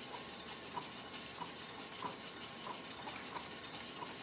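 Oiled abrasive sharpening stone stroked along a pair of speed skate blades clamped in a jig, a soft steady scraping with a faint tick about every two-thirds of a second. The stone rides under its own weight, with no pressure on it, while it raises a burr on the blades.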